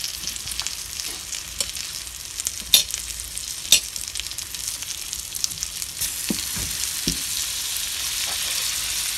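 Breaded bass fillets sizzling steadily as they pan-fry in butter and olive oil in a skillet, with two sharp clicks about three seconds in. The sizzle grows a little fuller after about six seconds.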